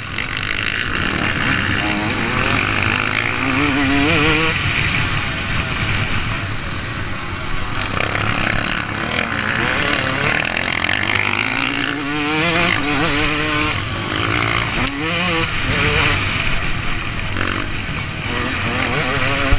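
Motocross bike engine, heard from on board, revving up and dropping back over and over as the rider works the throttle and gears at race pace, with wind rush on the microphone.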